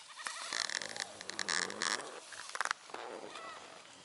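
Goats feeding in a napier grass plot: leaves and stalks rustling and tearing in a run of bursts, with a low animal call under them.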